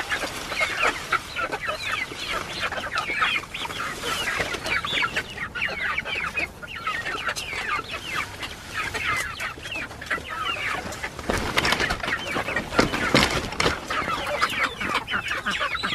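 A flock of young chickens clucking, many short calls overlapping without pause. A few sharper knocks sound about three-quarters of the way through.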